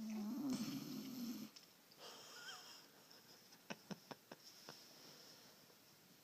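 Snoring: one loud, buzzing snore lasting about a second and a half at the start, then a softer breath about two seconds in. A few faint clicks follow around four seconds in.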